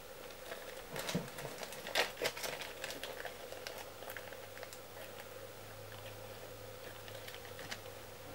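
Crinkling of a plastic dubbing packet being handled, loudest about two seconds in, then a few faint ticks and rustles.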